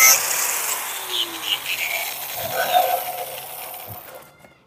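Electric angle grinder switched off just after cutting through a plastic bucket lid, its disc spinning down with a falling pitch and fading away over about four seconds, with a few light plastic rattles.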